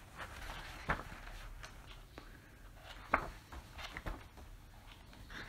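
Quiet room tone with a few faint, scattered clicks and knocks, the clearest about three seconds in.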